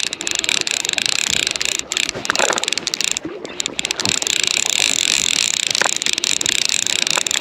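Fly reel's ratchet clicking rapidly and continuously as line is wound and pulled while a hooked brown trout is being played, with a couple of brief pauses.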